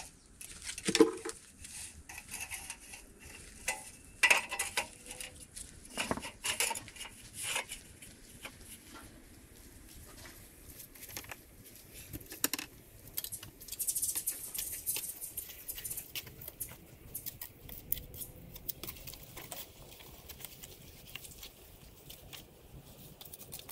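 A run of irregular light clicks, taps and scrapes of small hard objects being handled, with a few louder knocks, the loudest about a second in.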